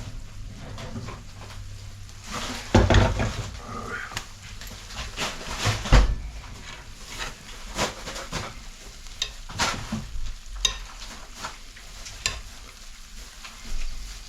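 Kitchen clatter of a clay roasting pan and oven being handled, with two loud knocks about three and six seconds in, followed by lighter clicks and scrapes.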